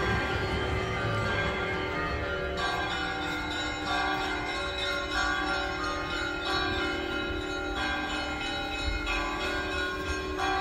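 Orthodox church bells ringing: several bells of different pitch struck in turn, about once every second or so, each ringing on into the next, over a low rumble.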